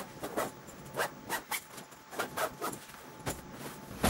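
Clothes and packing bags being handled and shuffled on a bed: a run of short, irregular rustles and scuffs.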